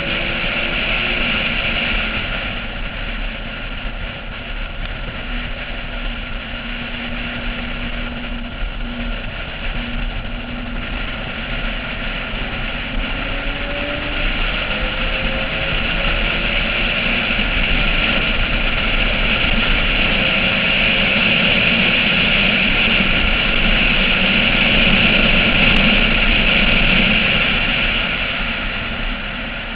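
Porsche 996's flat-six engine running at track speed, its pitch rising and falling, under a heavy rush of wind on a roof-mounted action camera. The wind and engine grow louder through the second half.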